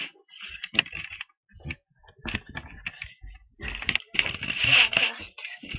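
Handling noise from a hand-held camera being carried: irregular clicks, taps and rustling, with a longer rustle about four seconds in.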